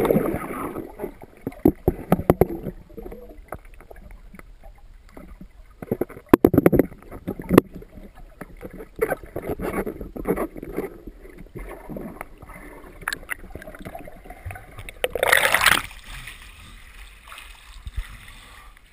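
Pond water sloshing and gurgling around the submerged camera, with scattered knocks and clicks from the filter parts being handled. Loud rushes of splashing water come at the start and again about fifteen seconds in.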